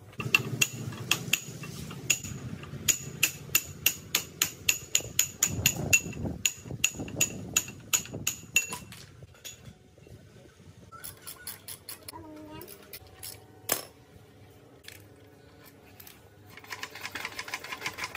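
Rapid hammer blows on a ringing metal part, about three to four a second, stopping about nine seconds in; after that a few scattered metallic clicks and knocks.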